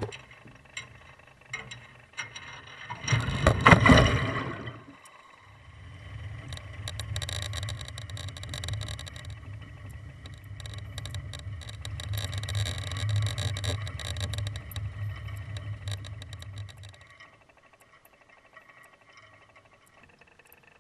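Camera housing splashing into the sea about three seconds in, a short noisy rush of water. Then, as it sinks, a steady low hum with crackling that stops about three quarters of the way through.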